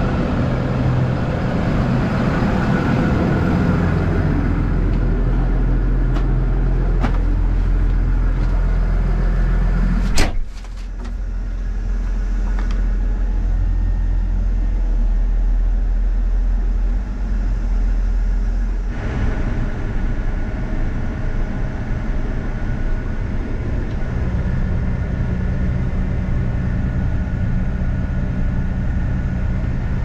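Versatile loader tractor's diesel engine running steadily as the tractor is driven. A cab door shuts with a sharp bang about ten seconds in, and the engine sounds duller afterwards.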